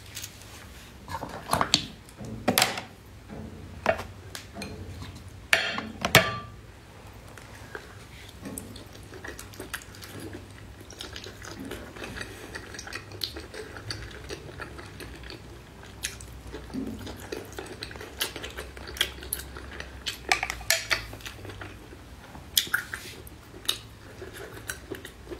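Eating sounds: sharp clicks of shells knocking against a plate, loudest in the first six seconds, then softer wet clicks and chewing as razor clam meat is pulled from the shell and eaten.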